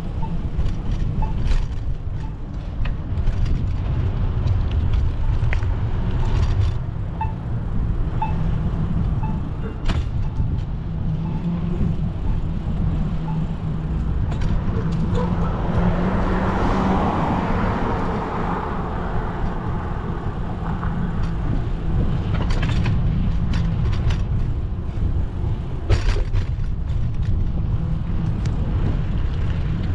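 City street traffic and a steady low rumble heard from a moving bicycle, with a motor vehicle passing and swelling loudest near the middle.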